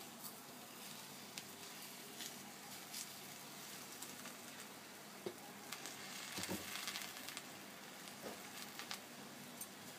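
Aloo paratha cooking on a hot tawa greased with a little ghee: a faint, steady sizzle with scattered small crackles, busiest a little past halfway.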